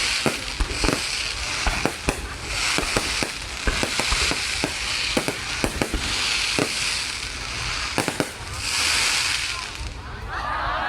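Fireworks going off: a rapid, irregular string of sharp bangs with recurring bursts of crackling hiss. Crowd voices and cheering begin near the end.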